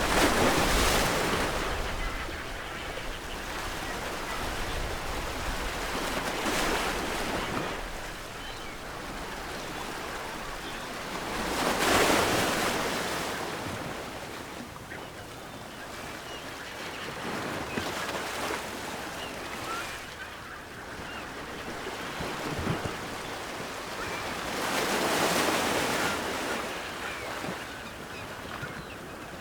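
Ocean waves breaking on a shore, one surge of surf about every six seconds washing back between breaks; the loudest breaks come at the start and about twelve seconds in.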